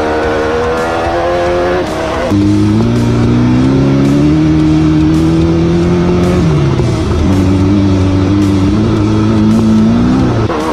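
Off-road race car's engine accelerating, heard from inside the cockpit. The revs climb, drop at a shift about two seconds in, climb slowly again, dip briefly about seven seconds in, and climb once more before falling off near the end.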